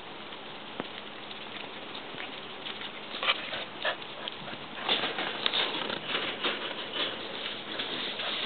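Border collie close to the microphone, making a run of quick, irregular patters and pants that gets louder about five seconds in.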